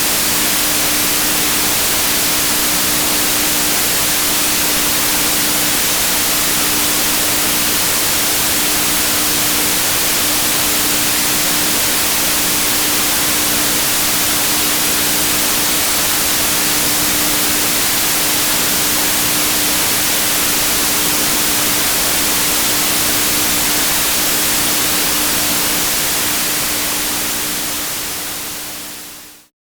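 Loud, steady static hiss with a faint steady low tone under it, fading out near the end.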